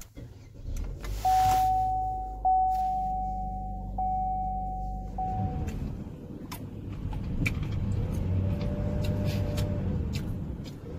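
Car engine started by push button, turning over briefly and catching about a second in, then idling steadily. A steady high electronic tone sounds for the first few seconds after it starts.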